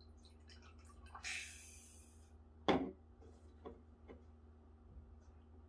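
Coravin Model Three wine dispenser pouring white wine into a glass: a faint trickle, then a short hiss of gas a little over a second in. A sharp knock near the middle as the bottle is set upright, then a few light clicks from the device.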